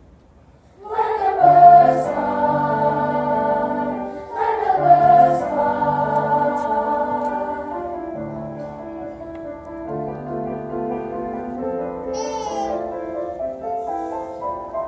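Choir singing sustained chords, the voices coming in together about a second in and again about four seconds in, then holding long notes that slowly grow softer.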